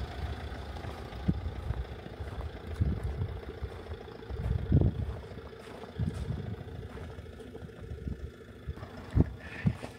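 Fiat Ducato van's diesel engine idling steadily, with uneven low rumbles underneath.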